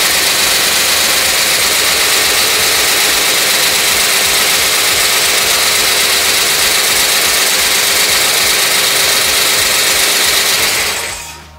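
Freshly rebuilt Mopar 383 big-block V8 idling steadily on an engine stand through open headers, then shutting off near the end. A couple of its valves don't sound right to the builder, who means to go back and readjust them.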